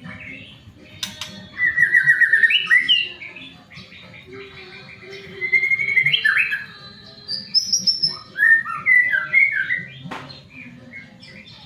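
White-rumped shama singing in three bursts of fast trilled and whistled phrases, with quieter gaps between. Two sharp clicks cut in, one about a second in and one near the end.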